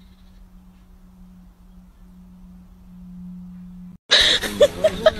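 Faint steady low hum. About four seconds in it cuts off and gives way abruptly to loud, busy sound full of short, wavering pitched calls.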